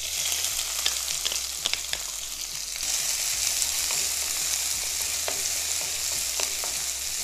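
Chopped onion sizzling in hot oil with cumin seeds in a kadai and being stirred with a spatula. The hiss starts as the onion goes in and grows louder about three seconds in, with scattered crackles throughout.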